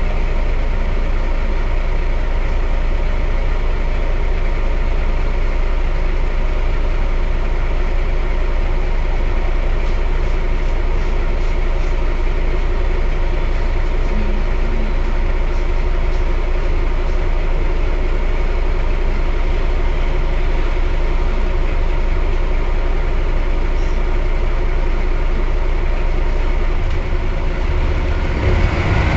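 Mercedes-Benz O 405 N city bus engine idling steadily. Near the end the sound swells louder and fuller.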